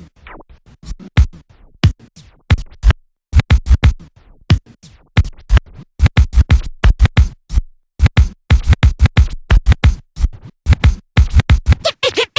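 DJ scratching of a record on a turntable: quick back-and-forth strokes in choppy runs, with short pauses between the runs.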